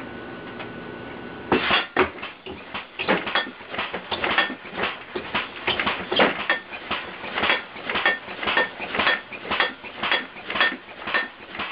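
Compressed-air-powered alarm contraption going off: after a second and a half of steady hum, a rapid, rhythmic metallic clanging and banging starts, about two to three sharp ringing strikes a second.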